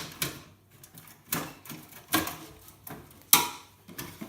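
A PC expansion slot card being worked loose from its motherboard slot, with about five sharp plastic and metal clacks at irregular intervals; the loudest comes just past three seconds in. The card is seated tightly.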